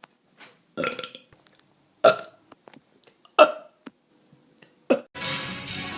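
A person burping in a run of short, separate belches, four loud ones about a second and a quarter apart. Near the end a steadier, continuous sound starts up.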